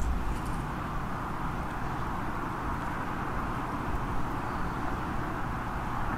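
Steady background hum of distant road traffic, a low rumble with a hiss that stays even throughout.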